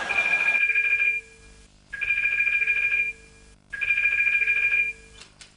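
Desk telephone ringing with an electronic ring, three rings each just over a second long with short pauses between: an incoming call.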